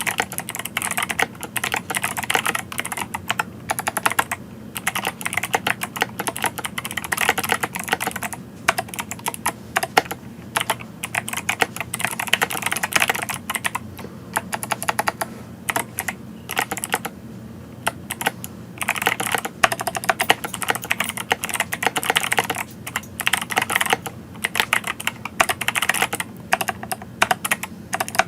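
Typing on an 8BitDo Retro Mechanical Keyboard: fast runs of key clicks and clacks, broken by short pauses every few seconds.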